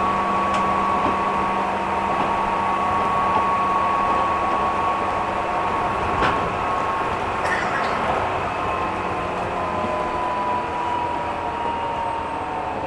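JR 205 series electric commuter train running, heard from inside the passenger car. Steady wheel and track rumble carries a motor and gear whine that falls slowly in pitch over the second half, with a few sharp clicks along the way.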